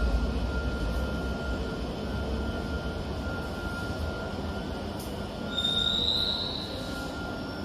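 Madrid Metro train running through the station: a low rumble that fades over the first few seconds, then a short, slightly rising high wheel squeal about six seconds in.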